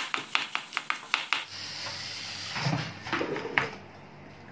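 Chef's knife dicing a red onion on a wooden cutting board: quick, even knocks of the blade on the board, about seven a second. About a second and a half in, the chopping stops and a low steady hum follows, with a few scattered knocks.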